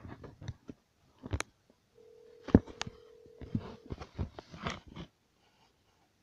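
Telephone ringback tone heard through a phone's speaker: one steady ring of about two seconds, the sign that the dialled call is ringing and not yet answered. Around it are handling rustles and short taps, with one sharp tap about two and a half seconds in.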